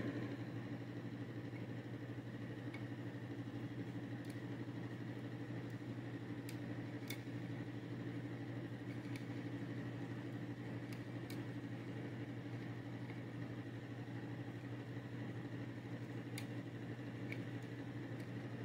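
Steady low machine hum from an appliance or fan in the room, with a handful of faint, scattered clicks as a plastic suppressor is screwed onto an aluminium air-rifle barrel shroud.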